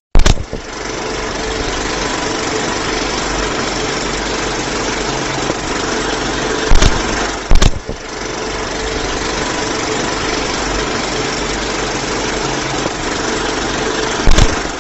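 Old film projector running: a steady mechanical whirr with a faint hum, broken by sharp loud clicks near the start, twice about halfway through and once near the end.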